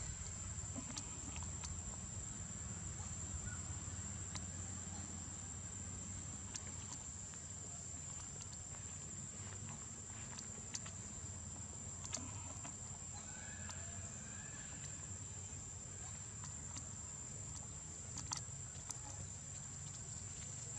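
Outdoor ambience: a steady high-pitched insect drone over a low rumble, with scattered faint clicks.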